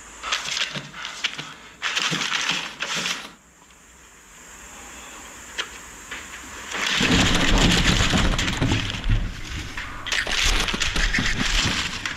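Sheets of paper crinkling and rustling as they are handled, in short bursts at first, then a longer, louder stretch of crumpling and handling noise over the second half.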